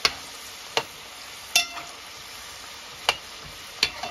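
Potato fries deep-frying in hot oil, a steady sizzle, while a slotted metal spoon stirs them and clinks sharply against the metal pot five times, one clink ringing briefly.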